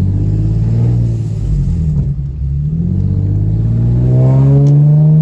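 Infiniti G37's V6 engine pulling the car along with a bad exhaust leak, heard with the windows down. The note sags about two seconds in, then rises steadily as the car accelerates.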